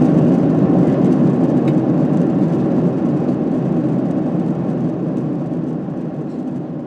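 Steady rumble of Boeing 767-300 engine and airflow noise heard inside the passenger cabin in flight, slowly fading out.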